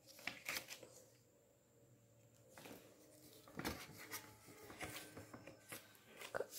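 Faint handling of a sheet of coloured paper on a tiled floor: scattered soft rustles and light taps as the glued paper is pressed flat and folded over.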